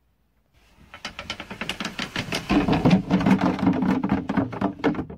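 Wooden bed slats on webbing straps clattering against each other in quick knocks as they are slid along a rail and bunched together by hand, retracting an extending slatted bed. From about halfway a steady rolling drone joins the clatter and it gets louder.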